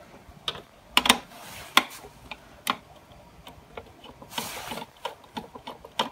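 Hands handling an opened PTZ dome camera's inner housing: a few sharp clicks and knocks of the parts, then a brief scraping rub about four and a half seconds in.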